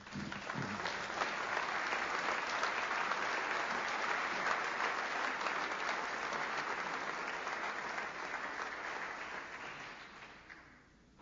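Audience applauding, steady for several seconds and fading away near the end.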